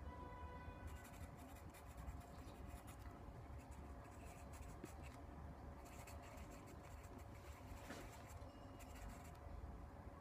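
Faint scratching of a pen writing on paper, in several stretches of a second or two with short pauses between, over a faint steady hum.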